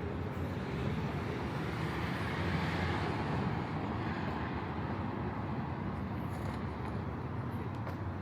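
Steady city road traffic, tyres and engines blending into a noisy hum, with one vehicle passing a little closer about three seconds in.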